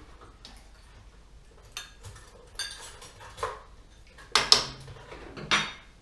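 A utensil knocking and scraping against a large steel stockpot of potato stew, in a handful of separate knocks, the loudest a little over four seconds in.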